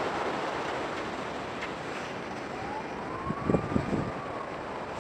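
Steady rush of wind and ocean surf, with a faint distant siren wail that rises and then falls once, about halfway through. A few low thumps on the microphone come around the same time and are the loudest sounds.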